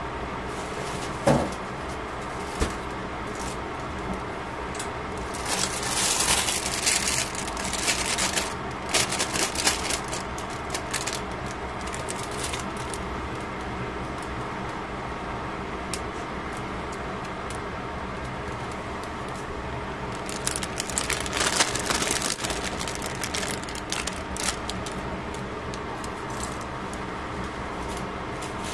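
Pot of vegetables boiling under a glass lid: a steady hum underneath, with two spells of crackling, rattling bubbling, one a few seconds in and one past two-thirds of the way through.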